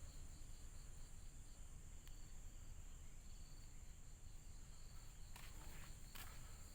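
Night insect chorus: crickets trilling steadily, with a fainter pulsing chirp over it. A couple of soft footsteps near the end.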